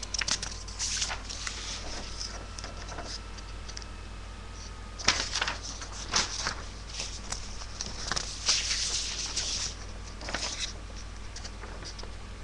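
Irregular bursts of scratchy rustling and small clicks from things being handled close to the microphone, over a steady low electrical hum.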